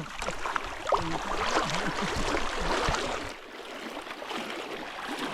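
River water splashing and rushing around people wading across a flooded river, with a few voices in the background. The splashing eases about three and a half seconds in.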